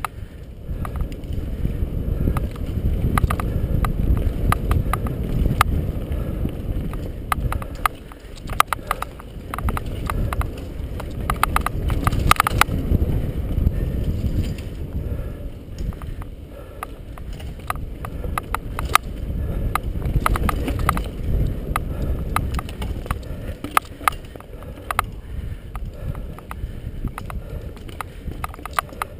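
Mountain bike riding fast down a dirt singletrack: a low rumble of tyre and wind noise that swells and fades, with frequent sharp clicks and rattles from the bike jolting over bumps.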